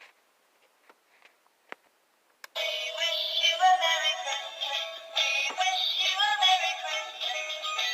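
A few faint clicks over near silence, then background music with singing starts abruptly about two and a half seconds in.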